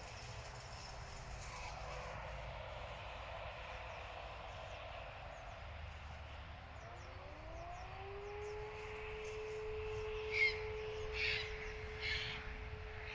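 Distant fire-alarm siren: a faint tone dies away at the start, then about halfway through a siren winds up in a rising glide and holds a steady tone. Near the end a bird calls loudly three times over it.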